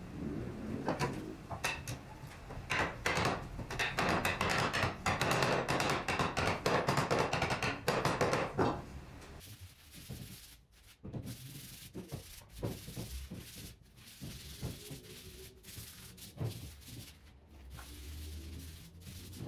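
Hand sanding the stool's wooden legs: rough back-and-forth rubbing strokes. They are loud and packed close together for about the first nine seconds, then lighter and more spaced out.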